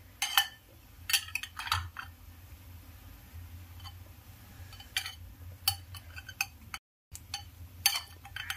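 A steel spoon clinking against a glass bowl as chunks of sweet potato are gently mixed: irregular short clinks, several in the first two seconds and more near the end.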